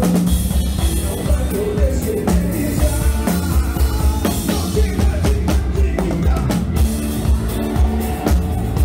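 Live band playing amplified music: a drum kit keeps a steady beat under electric guitars and keyboard, with strong bass.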